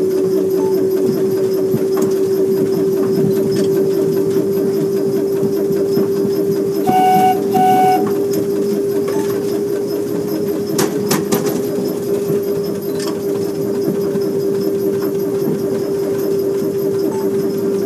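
Petit Train Jaune electric narrow-gauge train running, with a steady motor whine and wheel noise on the rails. About seven seconds in, two short horn toots sound; a few sharp clicks follow a few seconds later.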